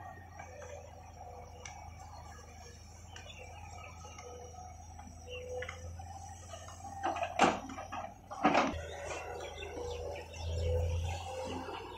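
Birds chirping over a low steady hum, with two loud, sharp sounds about seven and a half and eight and a half seconds in.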